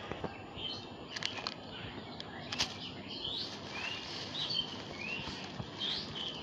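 Small birds chirping, with short rising and falling notes repeated over and over, and a few sharp clicks about one and two and a half seconds in.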